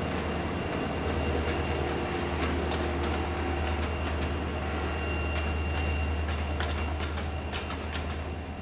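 Freight train rolling past: a steady low diesel rumble from its locomotives, with a thin high wheel whine and wheels clicking over rail joints, the clicks coming more often near the end.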